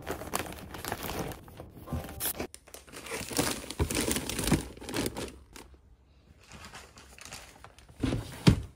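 Clear plastic zip bags of baby towels and clothes crinkling and rustling as they are handled and packed into a plastic drawer, quieter for a couple of seconds past the middle, then a single loud thump near the end.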